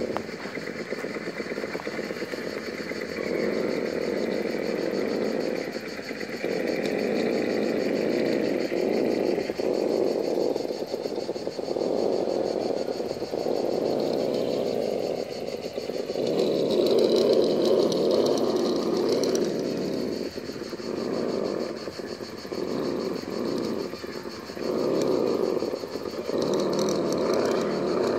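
Vaterra Ascender RC rock crawler's electric motor and geared drivetrain whining as it crawls over rocks, the whine surging and easing with the throttle, with brief drops every few seconds and a louder stretch in the late middle.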